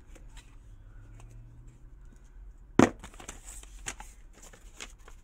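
Handling noise: a sharp knock nearly three seconds in, then a few light clicks and rustles.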